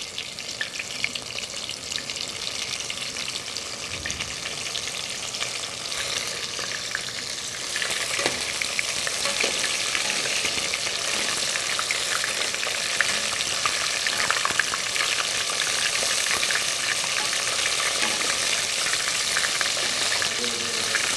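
Breaded artichoke hearts deep-frying in hot canola oil: a dense, steady sizzle and crackle that gets louder about six seconds in and again about two seconds later.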